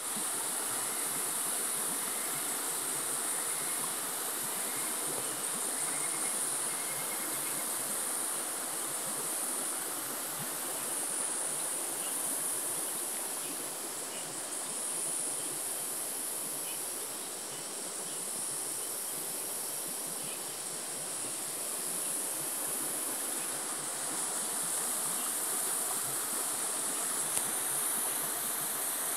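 Continuous chorus of insects, a high shrill buzzing that swells and fades every few seconds.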